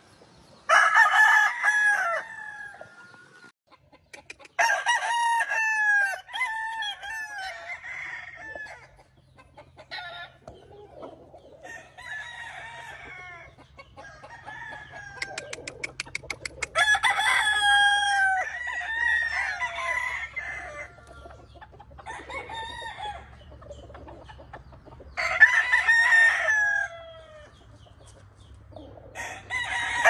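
Several gamefowl roosters crowing one after another, a crow every few seconds. Some crows are near and loud, others fainter from farther pens, and now and then two overlap.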